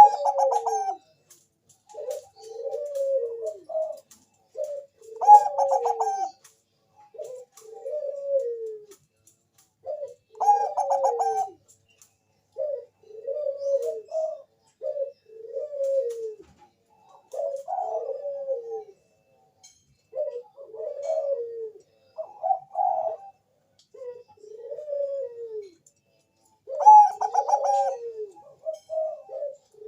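Bangkok-bred zebra dove (perkutut) cooing in repeated phrases of short falling notes. A louder, higher note opens a new phrase about every five seconds.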